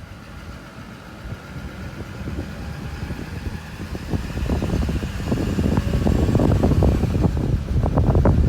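Wind buffeting the microphone: a low, gusty rumble that grows steadily louder, becoming strong from about halfway in.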